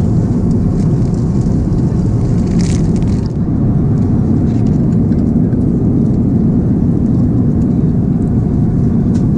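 Steady roar of an Airbus A350-900 airliner cabin in flight, a deep, even rush. About three seconds in there is a brief, higher rustle.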